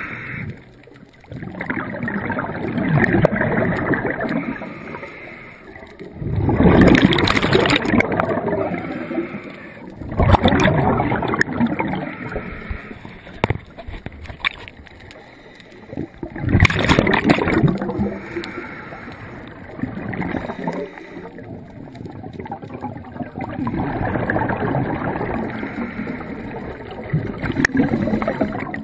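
Scuba regulator breathing heard underwater: three loud rushes of exhaled bubbles, with quieter hissing and bubbling between them.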